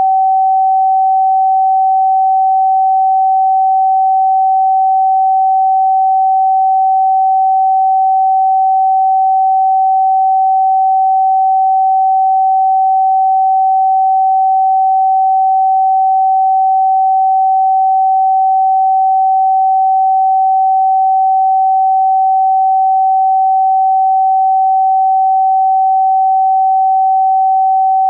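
Steady pure sine tone at about 764 Hz, the note G (Sol) in a 432 Hz-based tuning, held unchanging at one pitch and level.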